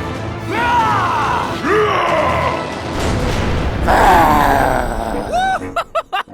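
A voice groaning in pain several times, each groan rising and then falling in pitch, over background music. Near the end there is a quick run of short chirps.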